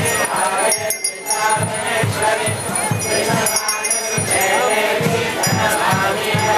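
Devotional kirtan: many voices singing together to a steady drumbeat of about two to three strokes a second, with jingling metal such as hand cymbals or bells on top.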